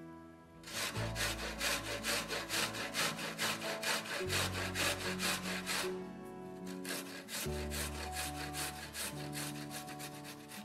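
A garlic clove rubbed up and down a stainless steel box grater: quick, even rasping strokes, several a second, louder in the first half and softer after that.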